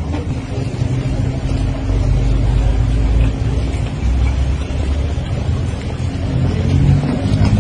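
A loud low rumble that rises and falls, with a steady hum running through it.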